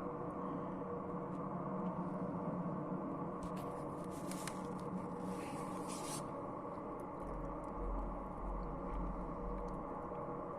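Steady drone of a coal-fired power station heard from a distance, a hum of several tones together. About four to six seconds in, a short burst of hiss rises over it, and near the end a low rumble joins it.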